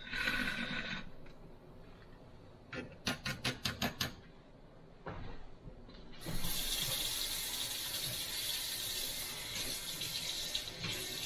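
A quick run of about six light clinks, then a kitchen tap turned on and running steadily at the sink from about six seconds in.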